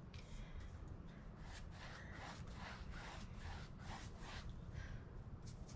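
Flat paintbrush stroking thin acrylic paint onto a canvas while laying a gold underpainting: a quick series of soft, scratchy swishes, about three a second, over a low steady hum.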